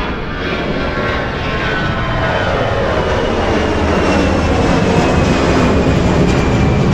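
Airplane taking off and passing overhead. The engine noise grows slowly louder while its whine falls steadily in pitch as the aircraft goes by.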